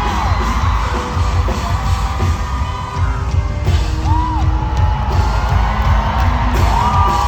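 A rock band playing a song live and loud, with heavy bass and a voice yelling and singing over it.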